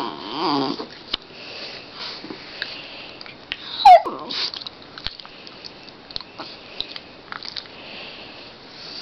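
West Highland white terrier yawning, with a short squeaky whine that falls in pitch about four seconds in, the loudest sound. Around it come soft sniffs and small clicks of the dog's mouth.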